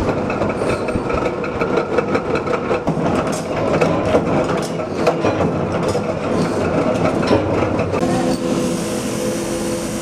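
Flywheel-driven mechanical power press running, with a rapid clatter of strikes as it punches stainless steel latch parts. About eight seconds in it gives way to a belt grinder's steady motor hum and the high hiss of a steel rod being ground on the belt.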